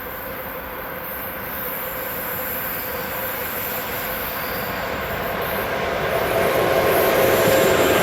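A train approaching on the line, growing steadily louder, its rumble carrying a few steady whining tones.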